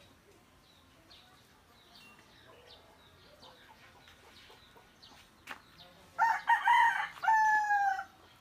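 A rooster crows once, starting about six seconds in and lasting about two seconds, ending on a held, slightly falling note. Faint short bird chirps come before it.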